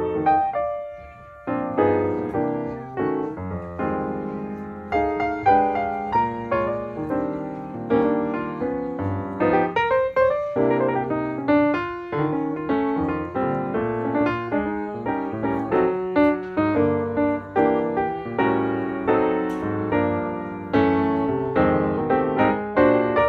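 Background piano music: a steady stream of struck notes that ring and fade, melody over chords.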